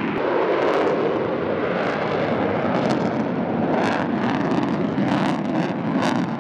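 F-35 fighter jet flying past with its afterburner lit: a steady, rushing jet roar with a few faint crackles in the second half.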